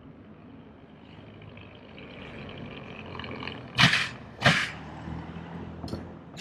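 A car driving up out of an underground garage ramp, its engine and tyres getting louder as it nears, then two loud clunks less than a second apart as its front and rear wheels go over a rubber speed bump. There is a lighter knock near the end.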